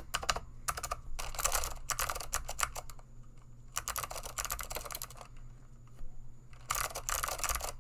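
Typing on a vintage DeltaGold Advanced keyboard with blue Alps switches: rapid runs of crisp clicks in several bursts, with short pauses between them.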